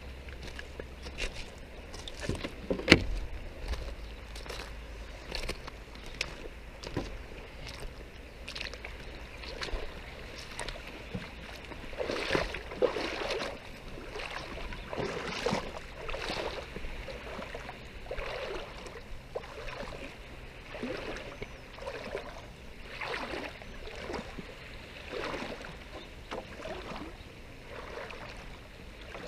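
Rubber gumboots wading through shallow tidal water, a slosh and splash with each stride at about one step a second. A single sharp knock about three seconds in.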